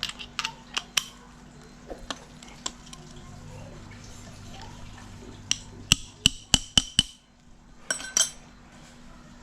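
Metal tools clinking and knocking against engine parts during disassembly. There are a few sharp clicks at the start, then a quick run of about six loud clacks around the middle, and two more near the end.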